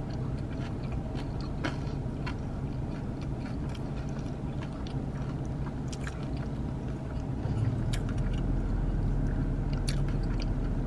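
Close-up chewing of a mouthful of crispy fried chicken sandwich, with scattered small crunches. A steady low hum runs underneath and gets louder about eight seconds in.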